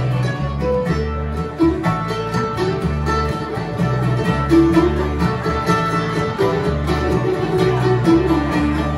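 Live bluegrass band playing an instrumental break: banjo, mandolin, acoustic guitar, upright bass and accordion, with the bass keeping a steady beat.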